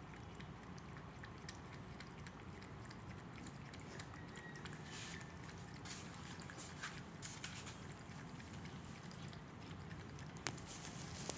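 A cat lapping water, with faint soft clicks of its tongue at the water over a low steady hum; a few sharper ticks come near the end.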